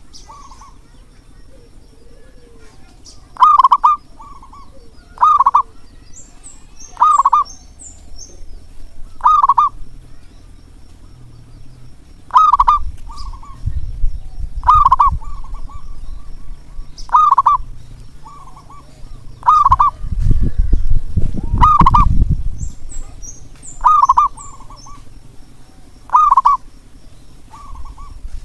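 Zebra dove (perkutut) cooing: short, loud calls repeated about every two seconds, each often trailed by a softer note. A small bird chirps faintly twice, and there is a low rumble in the middle.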